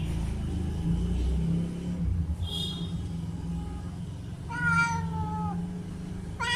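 Domestic cat meowing: a short high mew, then a longer meow that falls slightly in pitch, with another meow starting at the very end. A steady low hum runs underneath.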